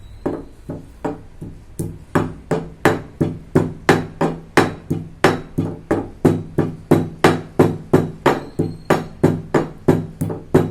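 Pestle pounding black peppercorns, cloves and cinnamon in a stone mortar (rolu) to grind them to powder. Steady, even blows come about three a second and grow louder after the first couple of seconds.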